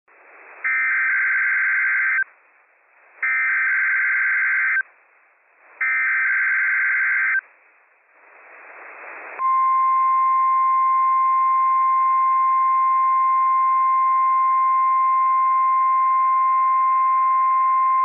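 NOAA Weather Radio alert test signal received over a weather radio: three identical bursts of SAME digital header data, each about a second and a half long with short gaps between, then a growing hiss, and about nine seconds in the steady 1050-hertz warning alarm tone, held unbroken for about nine seconds.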